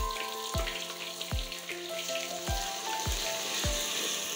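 Background music with a steady beat, a little under two beats a second, over the sizzle of onions, garlic and ginger frying in ghee in a clay pot.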